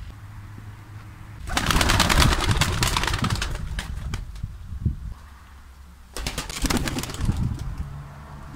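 Domestic pigeons taking off from the ground, their wings clapping and flapping in quick beats. There are two loud bursts of wingbeats, one starting about one and a half seconds in and a shorter one near six seconds.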